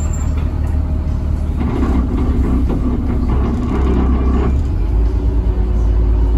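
The Caterpillar diesel engine of a Denning Phoenix low-floor bus, heard from inside the passenger cabin, running with a steady low rumble. About five seconds in the rumble grows heavier as the bus begins to pull away.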